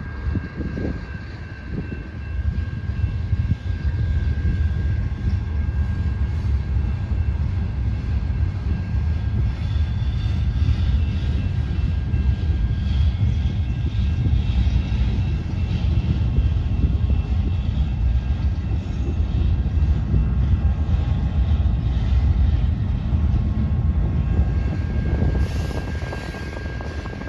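A train rolling past with a steady low rumble that builds over the first few seconds and eases near the end.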